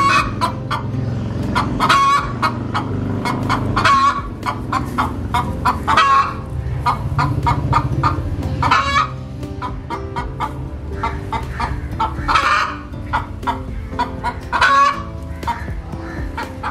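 A chicken calling over and over, one short squawking cluck every two to three seconds.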